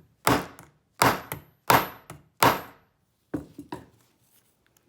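Hammer blows driving a blade into the join of a plastic lockout-tagout padlock body to split it: six hard strikes in quick succession, then a few lighter taps near the end.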